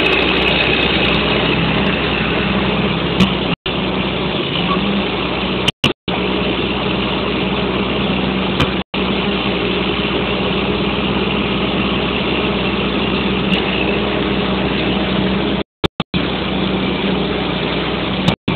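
Diesel engine of a Huddig 1260 articulated backhoe loader running at a steady speed. The sound cuts out completely for an instant several times.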